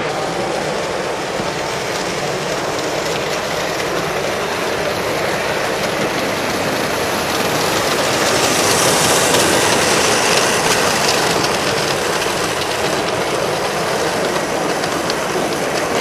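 Electric model trains running on a layout's track, a steady clattering of small wheels over rail joints that swells for a few seconds near the middle.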